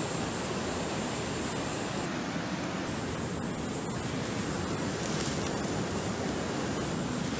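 Steady rush of a rocky mountain river's rapids, an even wash of water noise with no breaks.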